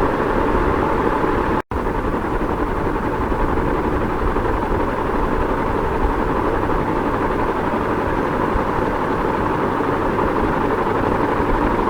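Ceiling fan running at a steady speed, giving an even whooshing hum. The sound drops out for a split second nearly two seconds in.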